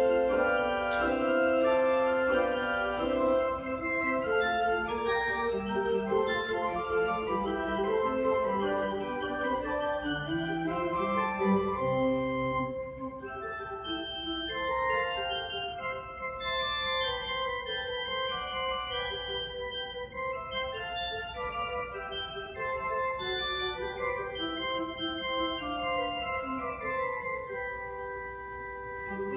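Organ playing slow sustained chords, several notes held at once and changing in turn, a little softer from about halfway through.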